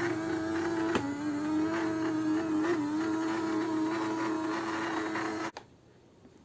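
Small robot vacuum cleaner running with a steady motor whine, with a sharp click about a second in. It stops abruptly about five and a half seconds in.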